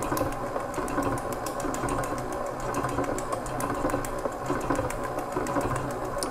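Electric stand mixer running steadily at speed 3, beating cake batter: a constant motor hum with fast, light clicking.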